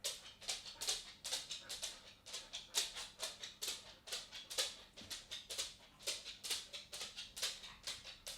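A dog's claws clicking and tapping on a wooden floor as it walks: an irregular run of sharp ticks, about three a second.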